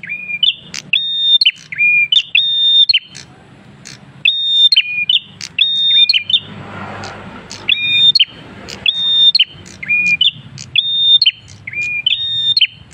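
Caged prenjak kristal singing loudly and continuously. It repeats a whistled phrase, a high note held and then dropped to a lower one, mixed with sharp quick clicks, about once a second, with a short break about three seconds in.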